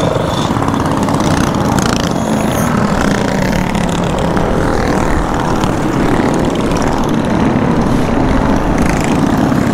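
Several mini bikes' small petrol engines running as a group of riders passes close by and rides off down the street.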